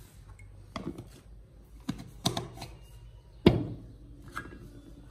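A spoon clicking and scraping in a plastic jar of ground turmeric as it is scooped out: a scattering of short, sharp clicks, the loudest about three and a half seconds in.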